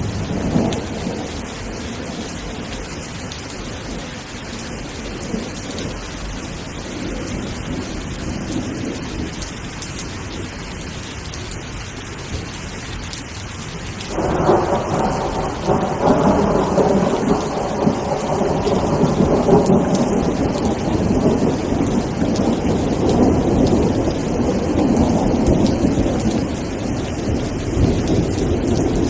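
Steady rain with thunder. A rumble fades out in the first second, and about halfway through a louder roll of thunder comes in suddenly and keeps rumbling to the end.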